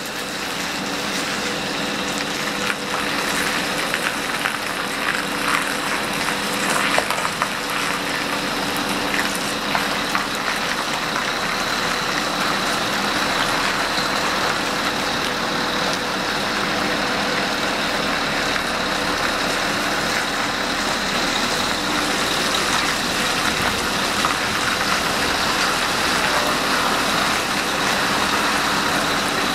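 Heavy truck combination with refrigerated trailers rolling slowly at low engine speed, a steady hum with a thin high whine over the noise of the engine and tyres.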